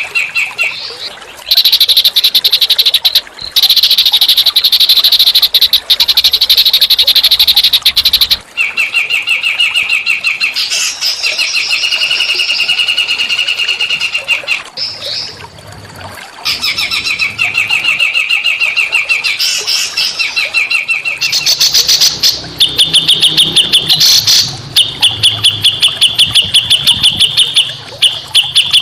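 Small songbirds singing loud, rapid buzzy trills in phrases of a few seconds each, separated by short pauses, with sharper repeated notes near the end: a masteran recording used to teach song to white-rumped shamas.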